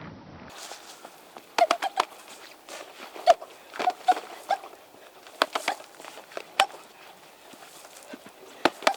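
Fists striking a punching-speed training machine: sharp knocks, some in quick flurries of three or four, with a louder double knock near the end.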